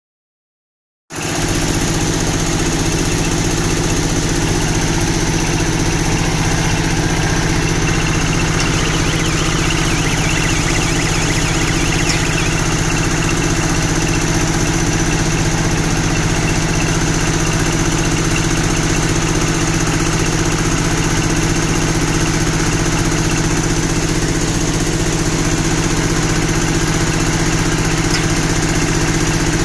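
Corn silage baler and wrapper machine running, a steady mechanical drone that starts about a second in and holds at an even pitch and loudness.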